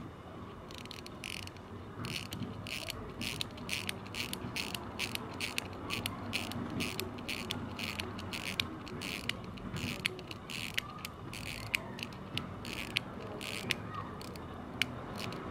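1925 Elgin ladies' pocket watch being wound at the crown: the click and ratchet wheel snap in quick, uneven runs of clicks as the mainspring is wound, starting about a second in.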